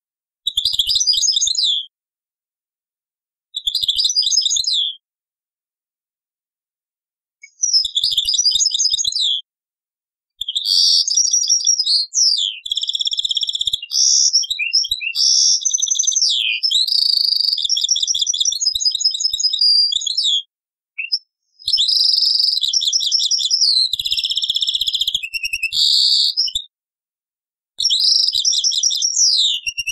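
European goldfinch singing, recorded on an old cassette: three short twittering phrases a few seconds apart, then from about ten seconds in long runs of fast, varied twittering song broken by brief pauses, with dead silence in the gaps.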